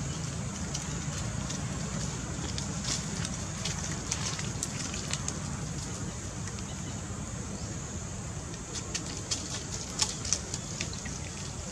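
Scattered crackling and rustling of dry leaves and twigs as macaques shift about on the leaf-littered ground, over a steady low rumble. A few sharper crackles come near the end.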